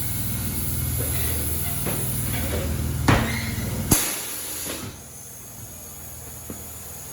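Tire-shop machine running with a steady low hum, a knock about three seconds in, then cutting off with a sharp clack about four seconds in; a high hiss fades out soon after.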